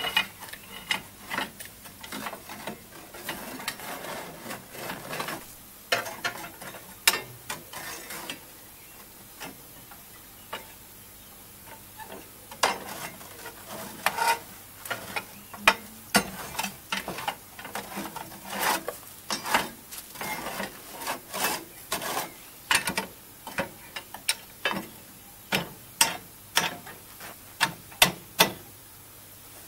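Steel rake and poker working ash and clinker out of a narrow-gauge steam locomotive's ash pan: rough scraping through cinders and irregular sharp metallic clinks and knocks of the rod against the ash-pan door and frame, the clinks coming thicker and louder in the second half.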